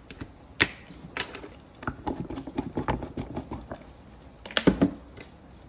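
Fingernails tapping on a phone's touchscreen: an irregular run of light clicks, with a louder cluster of taps about four and a half seconds in.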